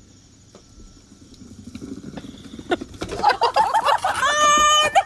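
A plastic ride-on tricycle's wheels rolling over brick paving, with a low noise that grows, then a high-pitched voice crying out, ending in one held scream for about a second near the end.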